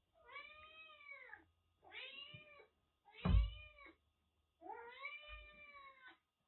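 A cat meowing four times in a row, each call rising and then falling in pitch, the last one longest. A dull thud comes with the third call, about halfway through.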